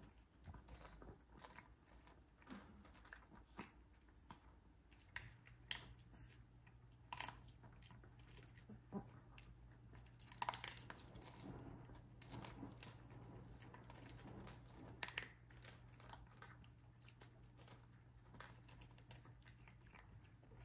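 Yorkshire terrier eating dry kibble from a plastic bowl: faint, irregular crunches and clicks of chewing.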